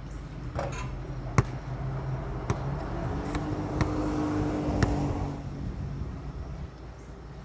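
A vehicle passing, its hum swelling to a peak around the middle and then fading, with a handful of sharp thuds roughly a second apart.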